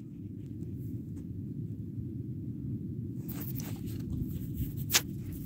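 Steady low rumble of wind on the microphone, with a few faint clicks and one sharp click about five seconds in.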